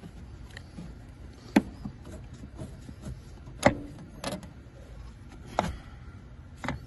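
Scattered sharp clicks and taps, about five in all, the loudest two near the start and the middle, from hands working brake-line fittings into a brake master cylinder.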